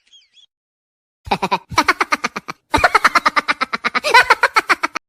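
Laughing sound effect: a person laughing in quick, rhythmic 'ha-ha' pulses with a short break partway through. A few faint high squeaks come just before it.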